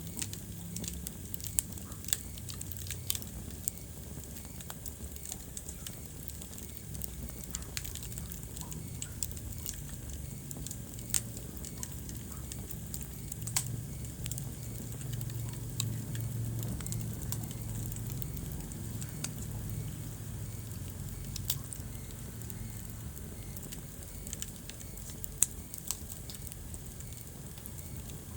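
Wood fire crackling in a fireplace: irregular small snaps and a few louder pops over a low, steady rumble of flames that swells a little midway.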